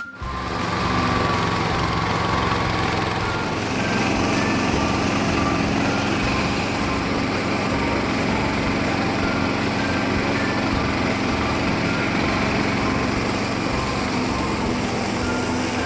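Agrojet ride-on garden tractor running steadily under load, its engine and mower deck mulching grass and fallen leaves; the engine note steps up slightly about three seconds in.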